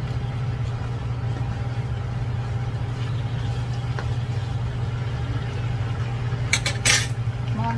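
Chicken pieces browning in a nonstick wok with a low sizzle, a spatula turning them, over a steady low hum. A brief sharp clatter comes near the end.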